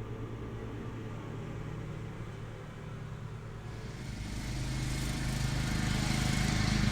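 Petrol lawnmower engine running steadily, growing louder from about four seconds in.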